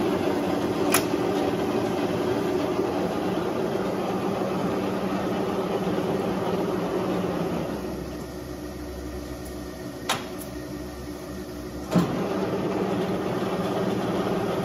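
1941 Monarch 12CK engine lathe running with a steady hum. About eight seconds in, the hum drops away to a quieter low drone, and a sharp clunk about twelve seconds in brings the fuller running sound back. Light clicks come near the start and about ten seconds in.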